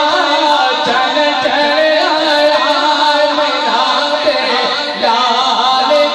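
Male voice singing a devotional naat through a microphone and loudspeakers, in long held notes that waver and slide in pitch.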